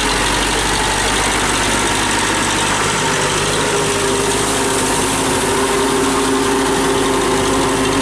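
TAFE tractor's diesel engine running steadily under load as its rear wheels churn through deep paddy-field mud.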